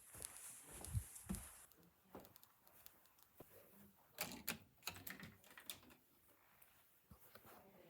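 Near silence broken by a few faint clicks and taps, a couple about a second in and a short run of them between about four and six seconds in.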